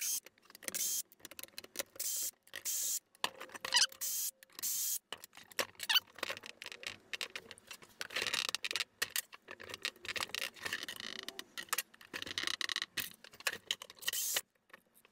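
Cordless drill-driver backing out Torx screws from a chainsaw's handle in short runs, with scraping and clatter of the bit, tools and plastic parts on a workbench. The sounds come in quick bursts with abrupt stops.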